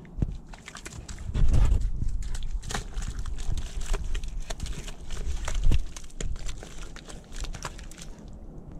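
Husky puppy digging in wet mud with its front paws: a rapid, uneven run of scratching and scraping in the dirt, busiest from about a second in until about six seconds.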